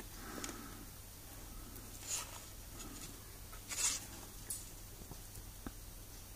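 Faint handling noise of thin stranded wire being worked by hand as the bared copper strands of two ends are fitted together: two brief soft scratchy rustles, about two and four seconds in.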